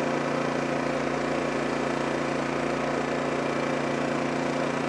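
A small engine running at a steady idle, an even hum that does not change.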